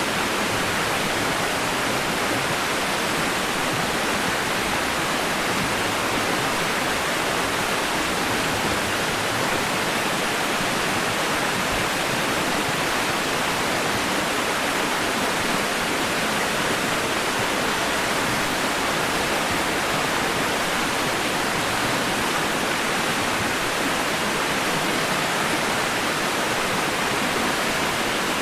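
Continuous white noise: an even, unchanging hiss with no breaks, most of it in the middle and upper range and little bass.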